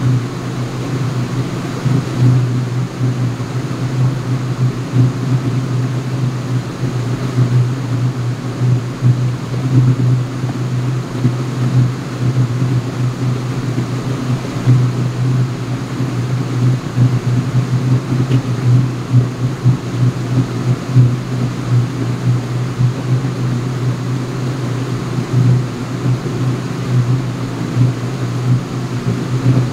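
Ship's engine-room supply ventilation and machinery running, a loud steady low hum that wavers slightly throughout.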